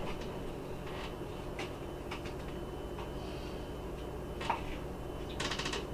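Faint clinks and scrapes of a spoon against a saucepan and bowl as chili is dished out: a few scattered light knocks, then a quick run of small clicks near the end.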